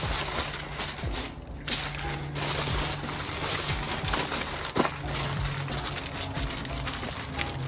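Heavy-duty aluminium foil crinkling and crackling as gloved hands crimp and press it tight into a package, with a sharper crackle about five seconds in.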